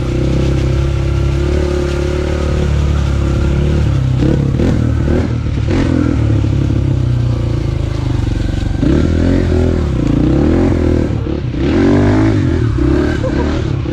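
Dirt bike engine running under way, steady for the first few seconds, then revving up and down in surges as it is ridden over uneven trail.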